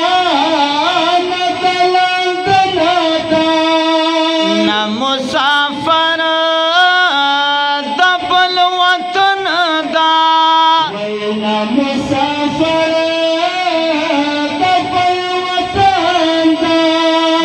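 Two men singing a Pashto naat into microphones, without instruments, in long held notes with melodic turns between them.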